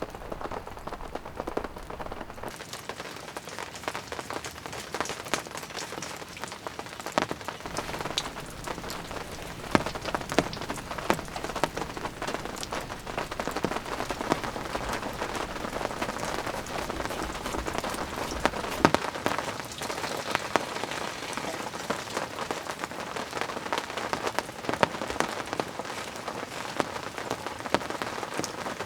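Steady rain falling, with many sharp individual drop hits close by and a few louder ones now and then.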